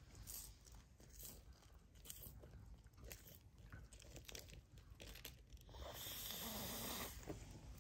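Sulcata tortoise biting and crunching its food: a series of short, sharp bites at uneven intervals, with a louder noisy stretch lasting about a second near the end.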